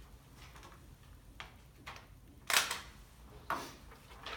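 Four short rustling and scraping handling noises, the loudest about halfway through.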